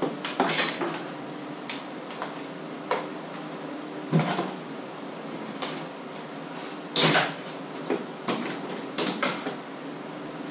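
Knocks and clatters of kitchen things being handled and put away, with a plastic hand mixer stowed on a low shelf; the loudest knocks come about four and seven seconds in. A steady low hum runs underneath.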